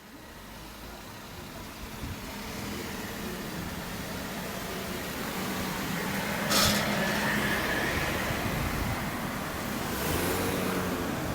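Road traffic running past a level crossing, with a brief sharp hiss about two-thirds of the way through.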